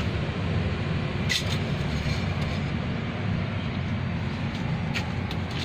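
Mitsubishi Colt Diesel truck's diesel engine idling steadily with a dense low rumble, with a brief click about a second and a half in.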